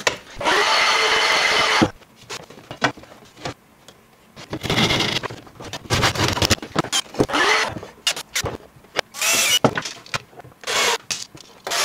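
Woodworking sounds in separate short bursts: a handsaw cutting a wooden batten and a cordless drill-driver driving screws, its motor whining briefly about nine seconds in. The loudest is a noisy stretch of nearly two seconds at the very start.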